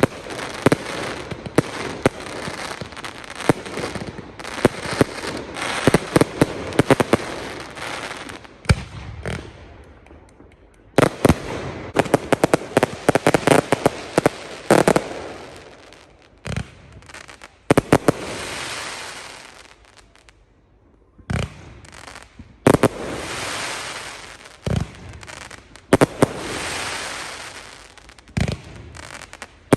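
Fireworks display: rapid volleys of sharp bangs and crackling, coming in clusters with brief lulls between them.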